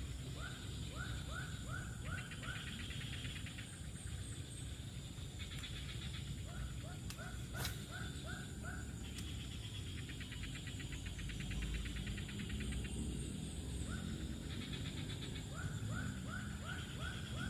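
An animal calling in runs of five or six short, quick, arching notes, each run repeated every few seconds. Between the runs a fast, high buzzing trill comes and goes, over a steady low rumble.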